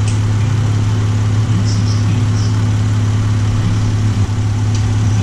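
Minivan engine idling steadily with an even low hum.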